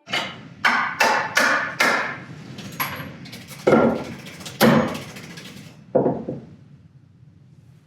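A hammer striking, about nine blows at an uneven pace, each with a short ringing tail; they stop about six seconds in.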